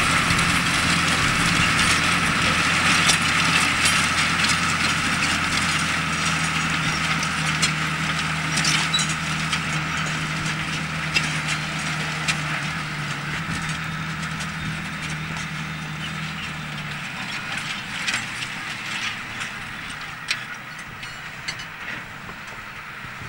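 Ford New Holland 8770 tractor's six-cylinder diesel engine running under load while ploughing, growing steadily fainter, its low drone dropping out about three-quarters of the way through. Scattered sharp cracks and clicks throughout.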